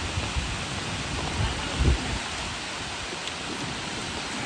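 Steady rain falling, heard as an even hiss, with a few low rumbling bumps about a second and a half to two seconds in.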